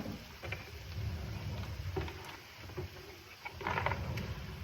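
Kitchen handling sounds: a few light knocks and clatter over a low rumble, from fetching a serving spoon.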